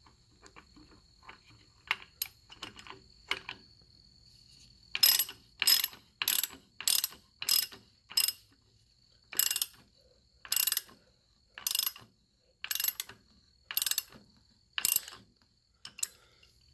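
Hand socket ratchet clicking as it tightens a threaded pipe adapter. A few light clicks come first, then from about five seconds in roughly a dozen short back-and-forth ratcheting strokes, quick at first and spaced about a second apart toward the end.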